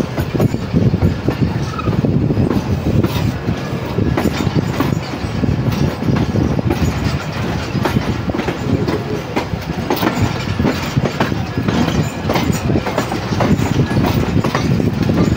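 Passenger train coach running on the rails: a steady low rumble with the clickety-clack of the wheels and frequent sharp clicks.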